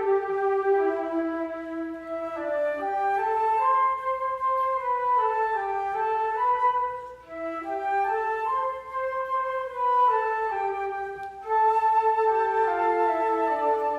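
Flute orchestra playing slow, sustained lines, with several parts moving stepwise against each other and a short break in the sound about halfway through.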